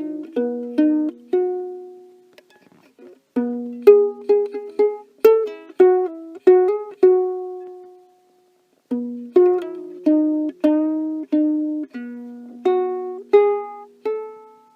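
Solo ukulele picked note by note: three short melodic phrases of plucked notes that ring and decay, with a pause of about a second between phrases.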